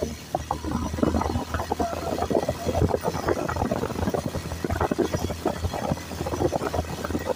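Motorcycle engine running steadily at low speed, with many irregular short knocks and rattles as the bike jolts over a rough, stony track.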